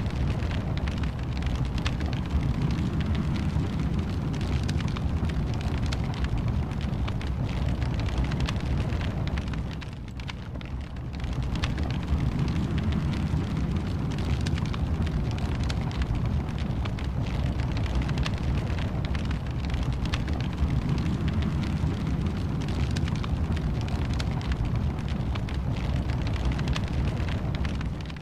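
Wood fire burning in a fireplace: a steady low rumble of flames with frequent small crackles and pops. The sound dips briefly about ten seconds in, then comes back.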